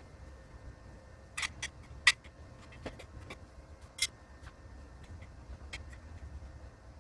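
About seven scattered sharp clicks and taps over a faint low rumble, the loudest a little after two seconds in.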